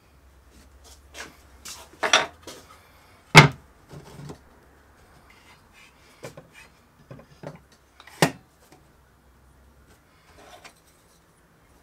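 Handling noise on a plywood workbench: plywood strips and a cordless circular saw being set down and shifted, making a series of wooden knocks and rubs. The saw is not running. The loudest knock comes about three and a half seconds in, and another strong one a little after eight seconds.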